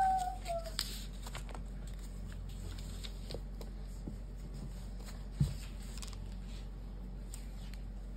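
Quiet paper and stationery handling: a sticky note pressed onto a book page, with light rustles and small clicks of pens being picked up and put down. A soft thump comes about five seconds in. At the very start a young child makes a short vocal sound that falls in pitch.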